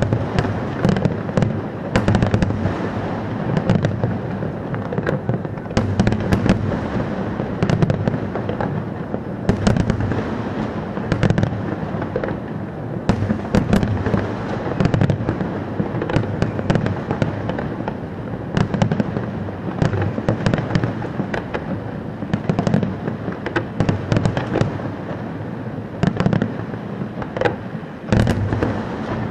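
Fireworks display: a dense, continuous string of sharp bangs and crackles over a steady low rumble.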